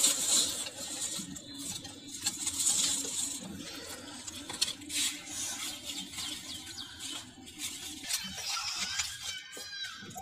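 Dry leaves and garden waste rustling and crackling as a hand presses them down into a clay compost pot, loudest in the first few seconds. A few faint high chirps near the end.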